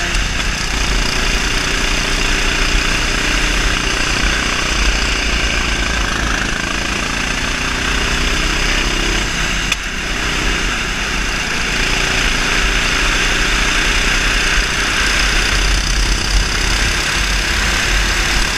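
RT8 kart's 390cc single-cylinder four-stroke engine running at speed under throttle, heard from the driver's seat with wind buffeting the onboard microphone. The engine note dips briefly about halfway through, then picks up again.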